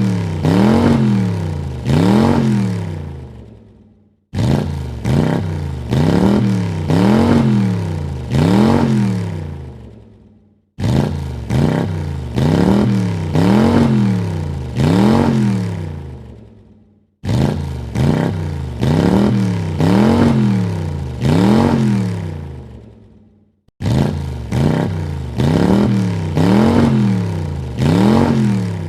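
Car engine revved in three quick blips, the pitch rising and falling with each, then dying away. The same burst is cut off sharply and repeats about every six and a half seconds.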